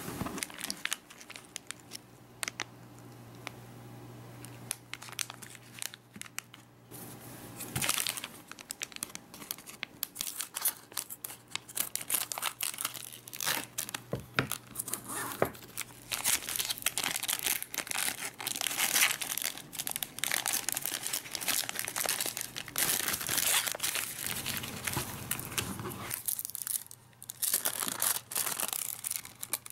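Crinkling and crackling of a foil snack pouch being handled and torn open, then thin plastic film rustling as it is peeled off sliced chocolate near the end. A faint steady low hum runs underneath.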